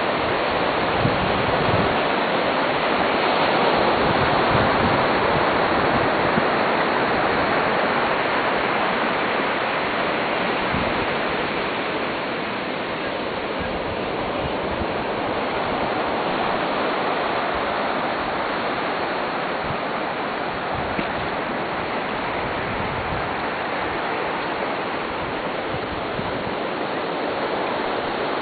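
Steady wash of small waves on a sandy beach, swelling a few seconds in and easing off a little past the middle.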